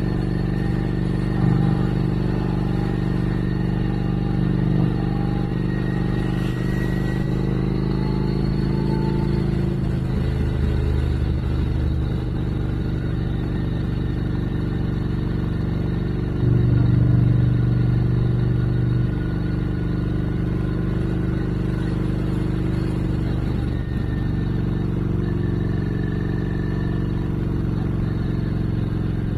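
Motorcycle engine running while riding, steady, with a short louder stretch a little past halfway.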